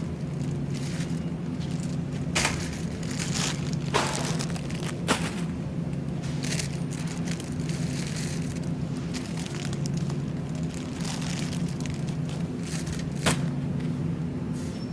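A steady low hum with a few sharp clicks and crinkles of items and packaging being handled while shopping in a supermarket.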